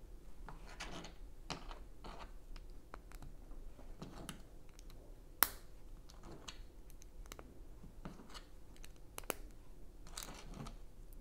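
Tan Lego bricks being handled and pressed together: soft scraping and rustling of small plastic pieces with scattered light clicks, and a sharper click about halfway through and another near the end.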